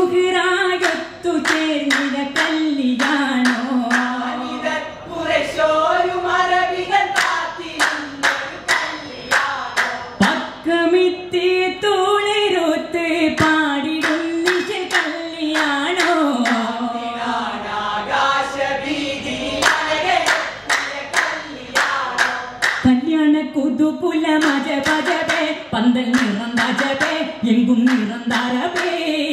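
Vattappattu, a Mappila wedding song of Kerala, sung in unison by a group of male voices with a wavering, ornamented melody, accompanied by rhythmic sharp hand claps from the seated singers.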